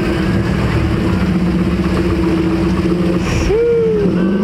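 A sports coupe's engine running at low revs as the car rolls slowly past, with one quick rev blip about three and a half seconds in.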